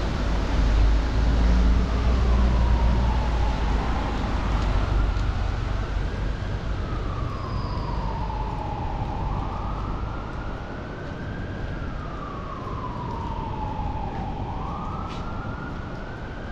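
An emergency-vehicle siren wailing, its pitch rising and falling slowly about every six seconds, over steady street noise, with a low rumble in the first few seconds.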